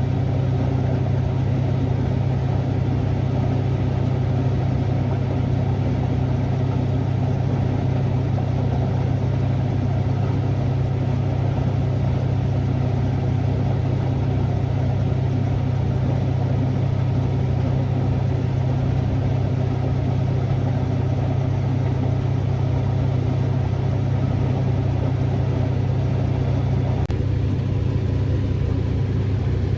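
Engine of a heavy farm machine running steadily: a deep, even drone. About 27 seconds in, the higher part of the noise drops away while the low drone carries on.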